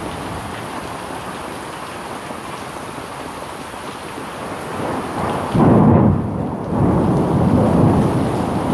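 Steady rain falling, then about five and a half seconds in a loud thunderclap breaks in and goes on rumbling in waves.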